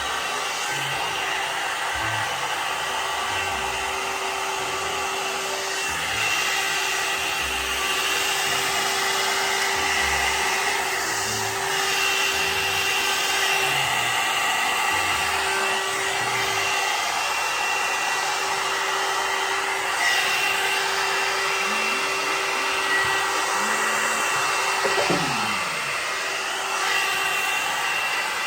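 MagicBrush hot-air brush hair dryer running steadily: a constant rush of blown air with a steady hum from its motor.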